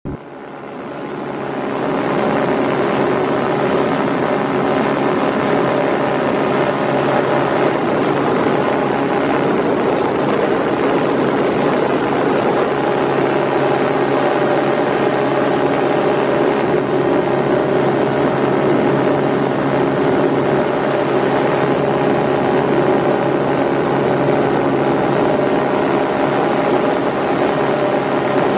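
Steady drone of a light aircraft's engine and propeller heard from inside the cabin: a hum of several steady tones over rushing noise. It swells in over the first two seconds.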